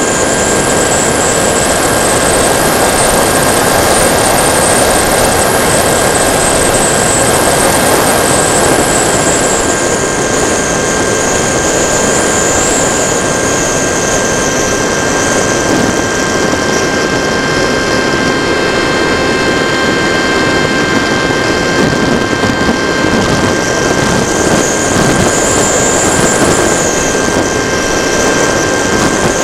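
TechOne Mercury RC plane's electric motor and propeller, heard from the onboard camera: a steady high whine that slowly rises, dips through the middle and climbs again near the end, over a constant rushing hiss of air.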